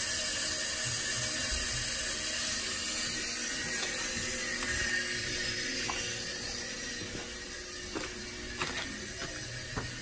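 Steady rushing hiss of water feeding into a newly installed steam boiler through its automatic feeder while the boiler fills, fading gradually, with a few faint clicks near the end.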